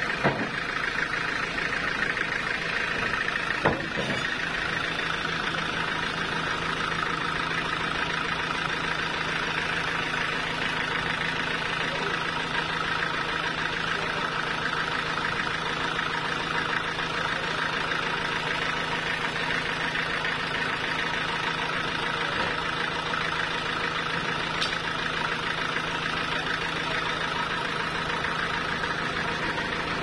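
Sawmill's engine running steadily without load, with a couple of sharp knocks in the first few seconds from the log being handled.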